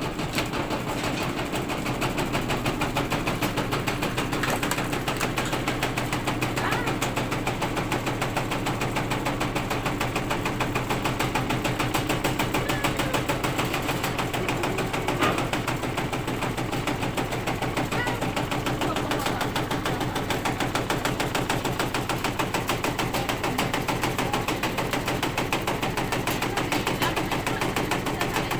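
Washing machine shaking violently while running, its drum and cabinet rattling and knocking in a rapid, unbroken rhythm over a steady motor hum: the extreme vibration of a neglected machine.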